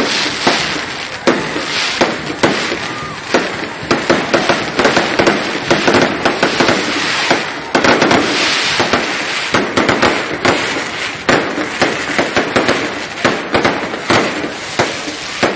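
A burning castillo fireworks tower: a dense, continuous crackle of rapid firecracker pops over a steady hiss of spark fountains.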